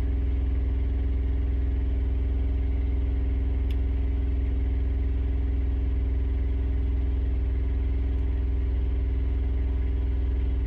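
Steady low engine drone, like a diesel engine idling, holding an even pitch and level throughout.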